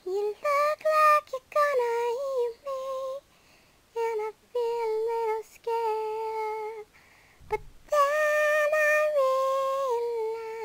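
A girl singing alone in a high voice with no accompaniment, holding long notes in short phrases separated by brief pauses.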